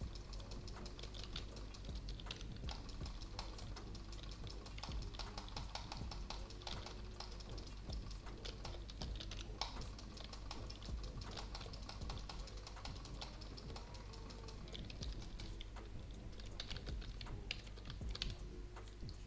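Fast, continuous typing on a keyboard: many irregular key clicks, several a second, without pause.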